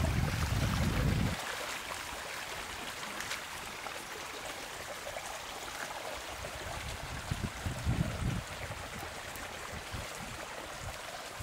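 Water flowing steadily, with wind buffeting the microphone for about the first second and again in a few gusts later on.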